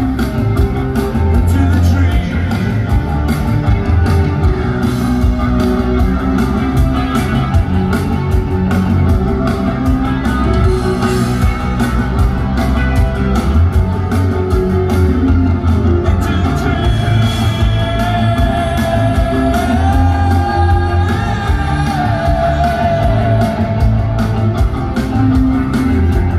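Rock band playing with drums, bass, guitar and singing. The music runs loud and even, and a high sustained melodic line glides up and down in the second half.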